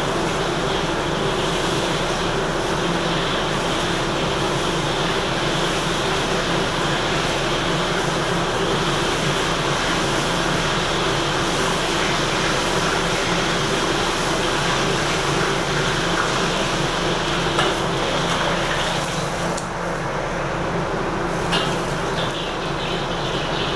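Steady roar of a commercial kitchen's gas wok burners and extraction fan, with a low hum running through it. A couple of light utensil knocks come in the last third.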